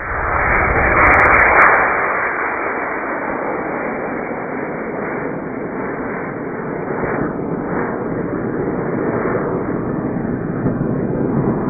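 Model rocket motor firing as the rocket leaves the launch rod: a loud rushing roar that peaks over the first two seconds, then carries on as a steady dull rush.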